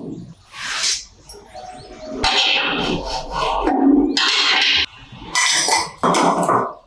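Metal motorcycle parts being handled and fitted: the steering stem and front fork going into a painted steel frame, making rubbing and knocking sounds in several short bursts.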